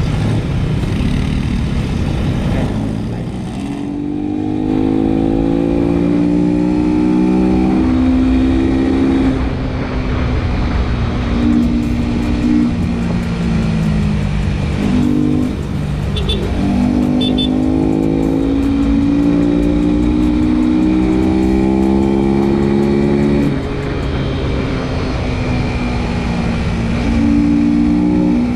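Honda RS150 motorcycle's single-cylinder engine accelerating on the road, its pitch climbing through each gear then dropping back at the shifts, several times over, with a low wind rumble underneath. Recorded through a foam wind-muffling case on the action camera.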